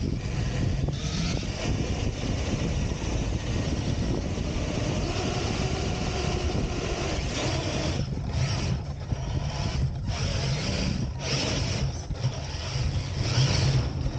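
Large radio-controlled off-road truck running over desert sand, a steady mechanical noise with a low hum underneath. The noise dips briefly several times in the second half.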